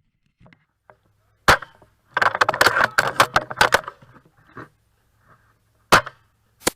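Tokyo Marui VSR-10 spring airsoft sniper rifle firing once with a sharp crack about a second and a half in. A dense run of clicks and knocks follows for about two seconds, and two more sharp clicks come near the end.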